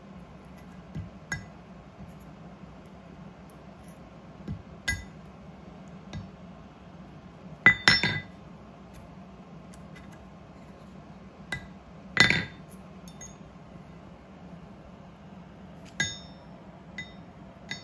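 Steel pins and a drill bit clinking and tapping against a steel gasket punch-and-die set as they are slipped into its holes to line the top punch up with the bottom die. The clinks come singly at irregular intervals, the two loudest a little before halfway and about two-thirds of the way through.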